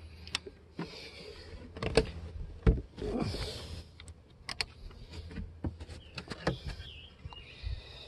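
Wooden hive parts being handled as the feeder is moved: scattered light knocks and clicks, with a few brief rustles.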